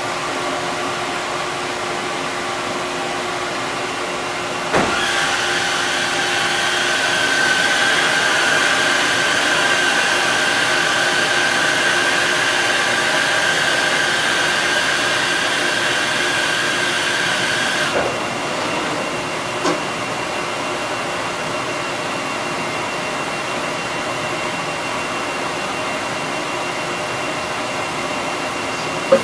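Cincinnati CNC machining center humming steadily. About five seconds in, a clunk starts a louder motorized whirring with a steady high whine that runs for about thirteen seconds and stops with another clunk, fitting the machine's automatic pallet change and door cycle.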